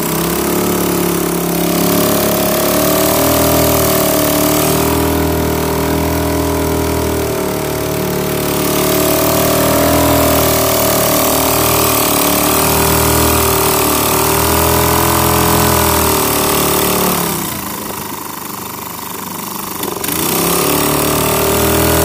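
Honda 2.3 air-cooled four-stroke outboard motor running hard with its pitch wavering as it pulls against a grapnel anchor snagged on the seabed. It eases off about seventeen seconds in and picks up again near the end.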